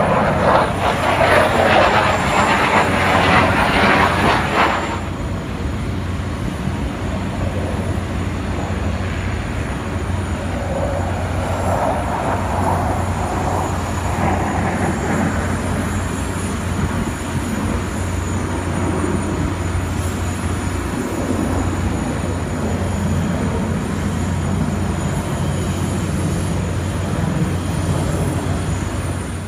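Chengdu J-10 fighter jets' engines roaring as they fly a display overhead. The roar is loudest and rushing for the first five seconds as a jet passes close. It then settles into a steadier, lower rumble as the formation flies farther off.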